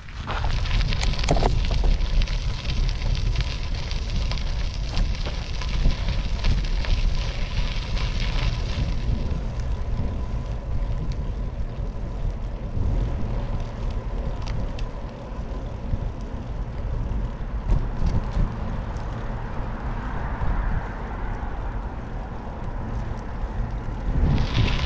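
Low rumble of wind buffeting the microphone, with a hiss over it that fades about a third of the way through and comes back near the end.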